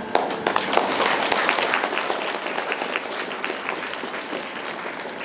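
Audience applauding: many hands clapping together, starting suddenly and slowly dying down.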